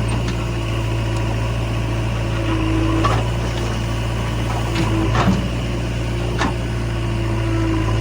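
Heavy diesel engine running steadily, with four short metallic clanks between about three and six and a half seconds in, the loudest near the middle.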